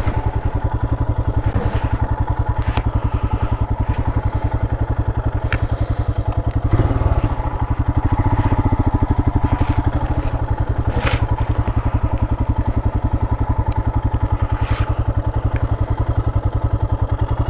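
Royal Enfield Himalayan's 411 cc single-cylinder engine running at low, steady revs, its firing pulses close and even. A few sharp knocks sound over it now and then.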